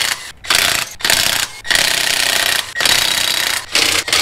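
Cordless impact wrench hammering on a wheel's lug nuts in a string of short bursts, about six, with brief pauses between them, as the nuts are broken loose to take the wheel off.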